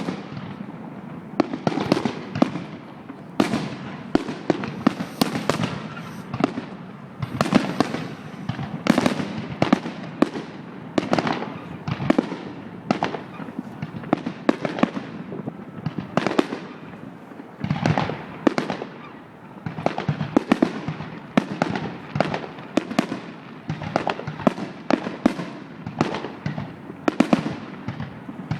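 Fireworks display: a dense, continuous barrage of aerial shell bursts, several bangs a second, each trailing off in a rolling echo.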